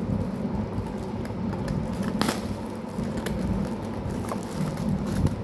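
Scissors cutting into a plastic courier mailer, a few sharp snips about a second apart with plastic crinkling, over a steady low rumble in the background.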